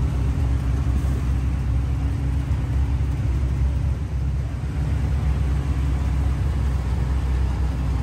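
Small tourist road train running, heard from aboard as a steady low engine and road rumble.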